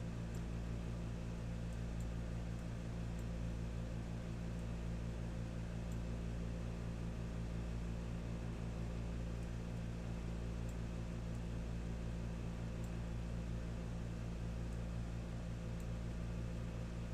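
Steady low electrical hum of several tones under an even hiss, with a few faint clicks scattered through.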